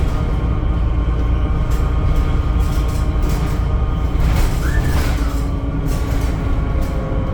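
Temsa Avenue LF 12 city bus with DAF diesel engine and ZF gearbox running, a steady low rumble with whining tones from the drivetrain. About four and a half seconds in a short noise comes with a brief tone that rises and falls.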